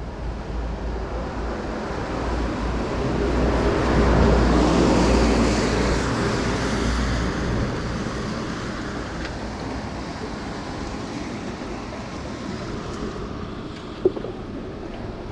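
Rushing noise that swells over a few seconds and slowly fades, over a low rumble of wind on the microphone, with one sharp tap near the end.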